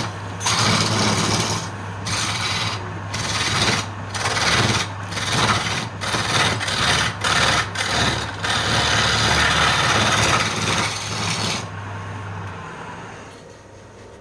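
Wood lathe running with a steady motor hum while a tool scrapes against the spinning wood in repeated passes with short breaks. The scraping stops about twelve seconds in and the lathe's hum then fades away.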